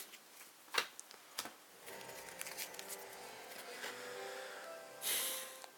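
Faint music with steady held tones, and game cards being handled: two sharp clicks near the start and a brief papery slide near the end.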